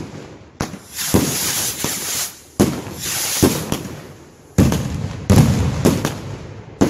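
Consumer fireworks going off: a string of about eight sharp bangs, uneven in spacing, with crackling hiss between them.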